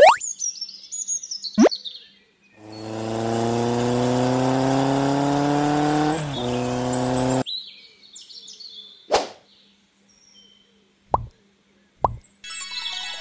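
A string of added cartoon sound effects: a quick rising whistle, a few high bird chirps, then a steady buzzy tone that rises slightly for about five seconds. A few short pops follow, and music comes in near the end.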